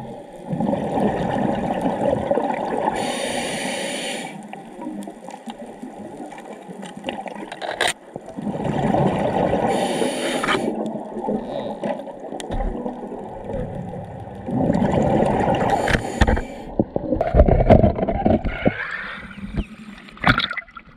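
Scuba diver breathing through a regulator underwater: a hiss on each inhale and a bubbling rush of exhaled air, a breath about every six seconds. Near the end, water sloshing as the diver surfaces.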